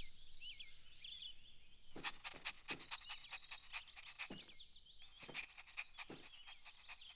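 Birds chirping and twittering in a steady chorus of short, high calls, with several short taps in the second half.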